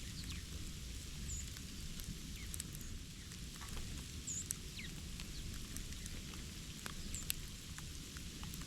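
Small birds calling in scattered short chirps and thin high notes, some falling in pitch, over light clicks and a low steady rumble.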